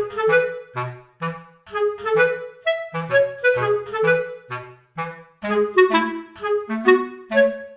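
Background instrumental music: a melody of short, quickly fading notes, about two a second, over a bass part that moves lower about two-thirds of the way through.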